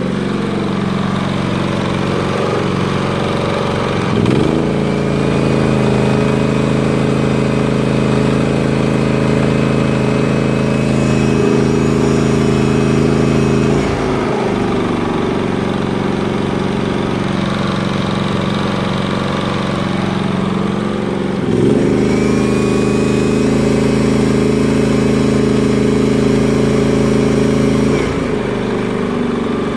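Hyundai HY3200SEi inverter generator engine running steadily. It speeds up twice, about four seconds in and about two-thirds of the way through, as a load of roughly half its rating is switched on, and settles back to a lower speed in between and near the end. A steady high whine joins in during the loaded stretches, from the heat gun used as the load.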